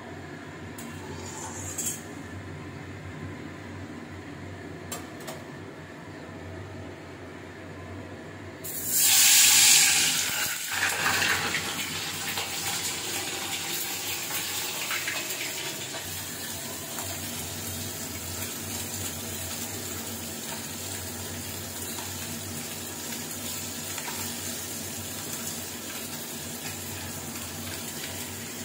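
Small puti fish going into hot oil in a kadai. A sudden loud sizzle about nine seconds in dies down into a steady frying sizzle. Before it there are only a few small clicks of handling.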